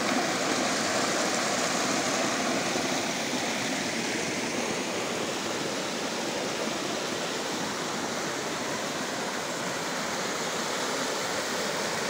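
Rain-swollen, muddy runoff rushing and splashing over bare rock in a shallow, wide cascade: a steady rush of water.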